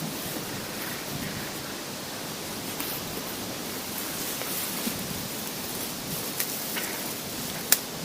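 Strong wind rushing over the microphone, a steady noise with a few short sharp clicks, the loudest near the end.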